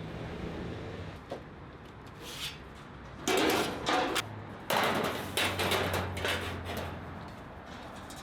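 Equipment clattering and scraping in two loud stretches, each starting with a sharp knock, from about three seconds in, over a low steady hum.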